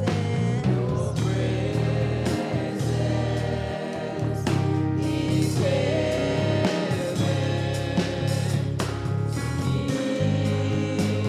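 Gospel worship song: voices singing over a band with bass and drums.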